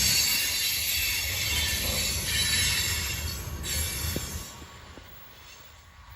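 Freight train cars rolling by on the rails: a low rumble under a high-pitched wheel screech, which die away about four seconds in.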